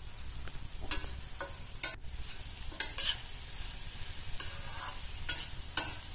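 A metal spatula stirs and scrapes shredded red cabbage around a stainless steel pot, with short, irregular strokes every half second to a second. A steady sizzle of frying runs underneath.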